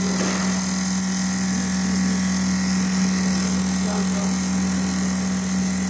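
Richpeace 360° rotating-head automatic sewing machine stitching a quilting pattern through heavy winter-jacket material. It gives a steady, even machine hum with a high hiss over it.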